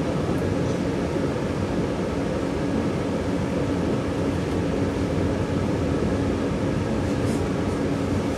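Steady running noise inside the passenger cabin of a moving 485-series electric train: a low rumble of wheels on rail with a steady low hum underneath.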